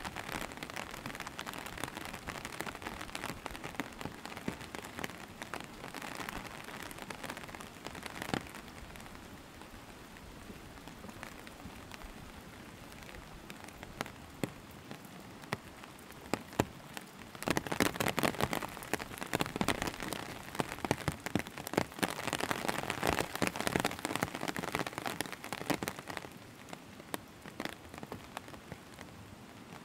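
Steady rain falling on a wet road and forest foliage, with many sharp individual drops ticking through the hiss. It grows louder for several seconds past the middle, then eases back.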